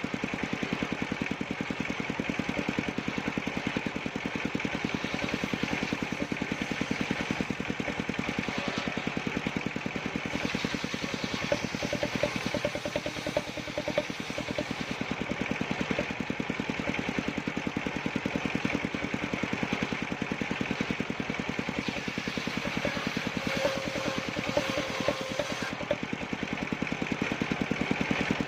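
Engine of a wood-cutting machine running steadily with a fast, even beat and no change in speed.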